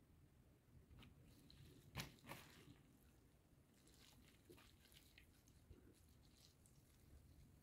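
Faint wet crunching and squishing of hands squeezing and tossing julienned cucumber strips in a bowl, pressing out their juice, with a sharper crackle about two seconds in.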